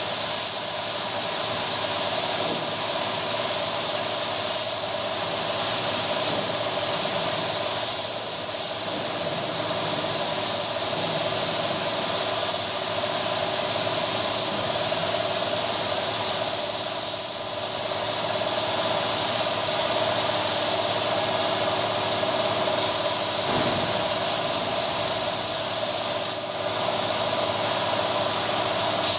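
Compressed-air spray gun hissing steadily as it sprays lacquer onto a wooden door, over a steady machine hum.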